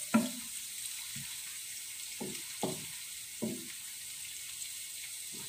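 Diced pork and chopped garlic sizzling steadily in hot oil in a frying pan. A few short voice sounds come about two to three and a half seconds in.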